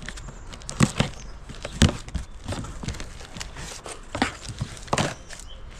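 A cardboard box being slit open with a blade and its flaps pulled back: cardboard rustling and scraping, broken by a handful of sharp knocks and snaps, with the plastic packaging inside crinkling.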